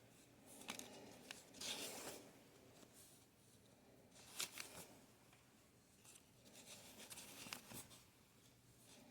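Faint paper rustling as dollar bills are leafed through one by one: short, scattered swishes of the notes sliding against each other.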